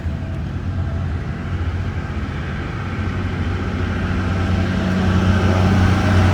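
A vehicle engine running steadily with a low hum, growing louder over the last couple of seconds.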